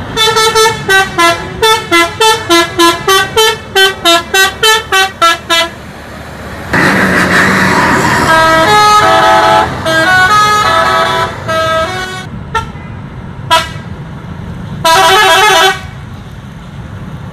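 Multi-tone musical horns on tour buses ('telolet' horns) playing tunes. For about six seconds there is a fast run of short blasts, about three a second, stepping between pitches. This is followed by longer held notes that change pitch, and then two short blasts near the end.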